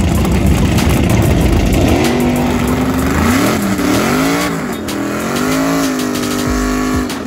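Drag car's engine revving hard, its pitch rising and falling repeatedly, as the rear tyres spin in a burnout at the start line.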